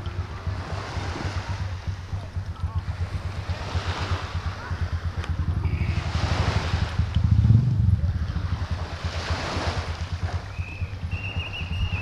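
Wind buffeting the camera microphone in a constant low flutter, with small waves washing onto the beach in soft swells every few seconds.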